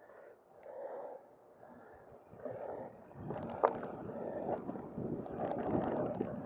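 Mountain bike riding over a dirt trail: tyre and bike noise with rattles and knocks over the rough ground, getting louder about three seconds in, with one sharp click near the middle.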